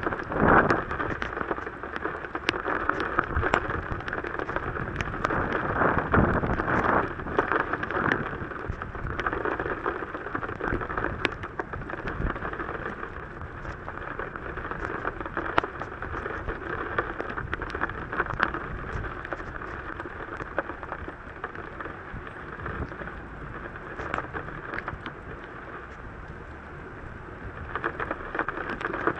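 Heavy rain pattering on a car, with many drops ticking on the glass. It comes down hardest at first, eases off midway and picks up again near the end.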